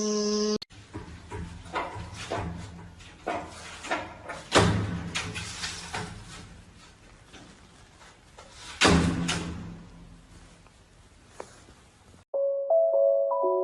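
A run of irregular knocks and bangs, loudest about four and a half and nine seconds in, then piano music starting near the end.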